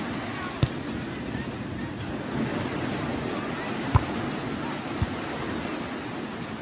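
Surf washing on the beach with wind on the microphone, steady throughout, with three sharp smacks of a volleyball being hit, the loudest about four seconds in.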